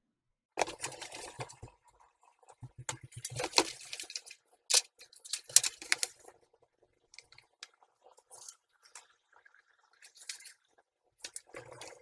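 Irregular rustling and small clicks, as of things being handled close by, busiest in the first six seconds and sparser after.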